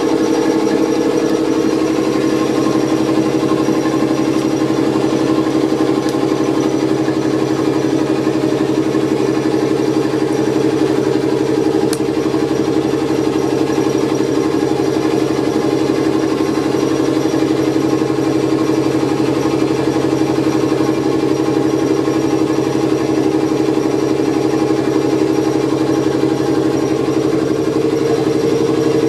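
Auxiliary machinery of a Czech class 451 electric multiple unit running steadily, heard in the driver's cab during start-up of the unit: a loud, even mechanical hum with a fast regular pulse.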